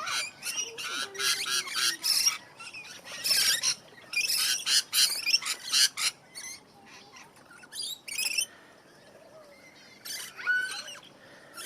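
Many aviary birds calling together: runs of harsh, high squawks and chirps, dying down to a quieter stretch about halfway through before a few calls start up again near the end.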